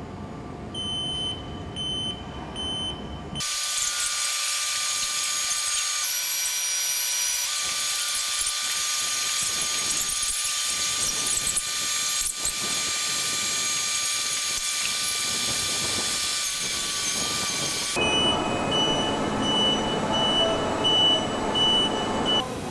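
A factory overhead crane's warning beeper sounds a repeating high beep while it carries an aircraft wing. About three seconds in it gives way abruptly to a loud steady machine hiss with thin high whines. The beeping returns, faster, for the last few seconds.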